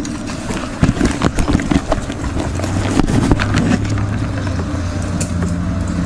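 Handling noise of a camera being moved and fitted: a quick run of knocks, clicks and scrapes in the first few seconds, settling into a steady low hum.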